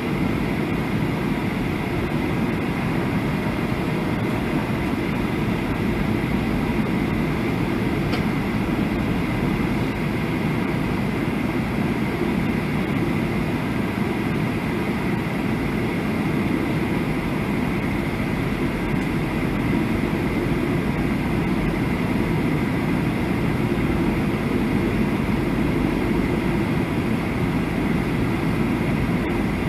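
Cabin noise inside a Boeing 737 on approach: the steady roar of the jet engines and rushing air, deep and even, with a faint constant high tone above it.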